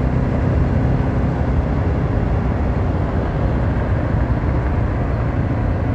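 Jawa 42 motorcycle's single-cylinder engine running steadily while riding along, with wind rushing over the microphone.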